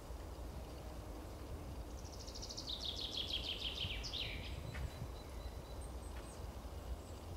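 A small songbird sings one fast trill of high notes that falls in pitch and ends in a short downward flourish, over a steady low background rumble.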